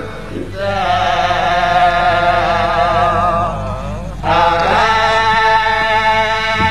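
A man chanting in the sung recitation style of a zakir, holding long melodic phrases with a wavering pitch; the first phrase fades and a new one begins about four seconds in.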